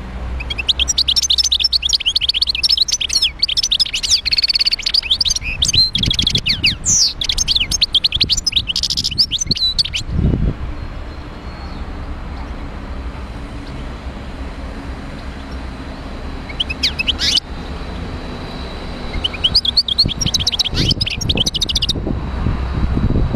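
Wild-caught European goldfinch singing in rapid, twittering phrases: one long phrase of about ten seconds, a brief burst past the middle, and another phrase near the end.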